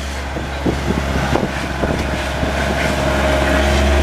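Diesel engines of road-paving machinery, a backhoe loader and a small asphalt roller, running with a steady low rumble that grows louder, with a few light knocks and clanks over it.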